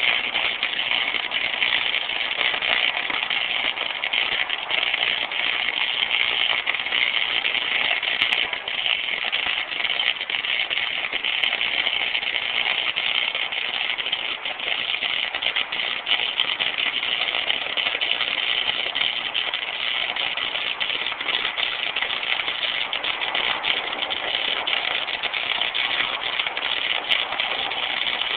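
Electric arc welding: the arc strikes and then burns steadily, a continuous crackling hiss that starts suddenly and carries on without a break.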